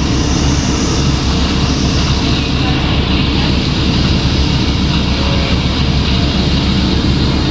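Inside a 2006 New Flyer D40LF transit bus under way: its Cummins ISL diesel engine running with a steady low rumble under constant road and tyre noise.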